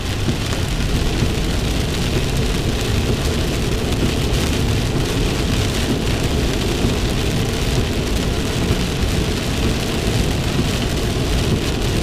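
Heavy rain pounding on a car's roof and windshield, mixed with tyre and road noise at highway speed, heard from inside the cabin as a steady, dense rush.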